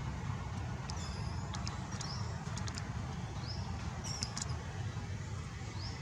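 A baby monkey giving short, high-pitched rising squeaks about once a second, a cry of hunger for milk, over a steady low rumble and a few sharp clicks.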